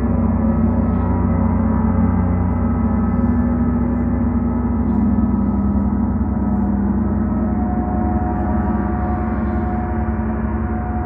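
Large planetary gongs played without pause: a steady, dense wash of many overlapping ringing tones, strongest in the low range, with no single strike standing out.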